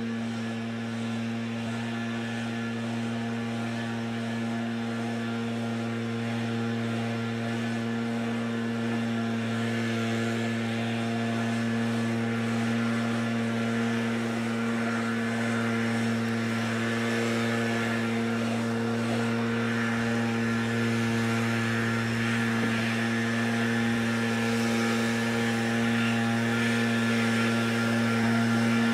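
A backpack leaf blower's small two-stroke engine running at a steady speed, growing gradually louder.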